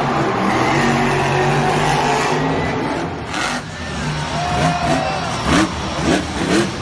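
Monster truck's supercharged V8 engine running hard at high revs. After a cut about three seconds in, another monster truck's engine revs up and down several times as it wheelies and spins on the dirt.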